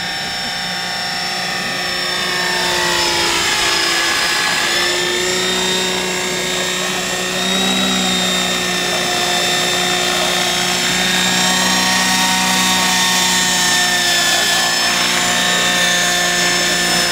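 Radio-controlled scale model helicopter (a HeliBaby replica) hovering, its motor and main rotor giving a steady whine. The pitch sags about three seconds in, recovers a second or so later, and dips slightly again near the end as it comes down low over the ground.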